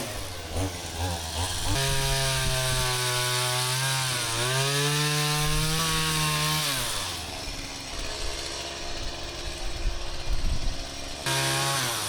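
Chainsaw running at varying revs: the engine note sags about four seconds in, then climbs and holds before dropping away about seven seconds in. It picks up again briefly near the end.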